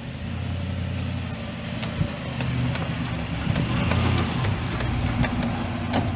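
Ford F350 Super Duty's 6.2L V8 gas engine idling steadily, its pitch shifting slightly a couple of times, with a few light clicks over it.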